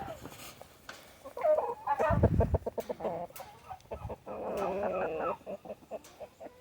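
Chickens clucking and calling, several short clucks followed by one longer call a bit past the middle, with a low thump about two seconds in.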